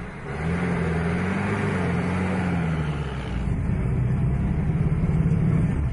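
UAZ off-road jeep's engine running while driving, heard from inside the cabin; the engine note rises about half a second in and eases back down a couple of seconds later.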